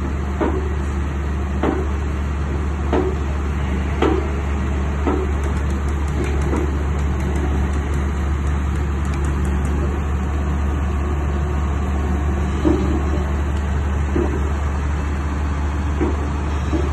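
Excavator diesel engine running steadily with a deep hum, with a sharp knock about every second or so as it works.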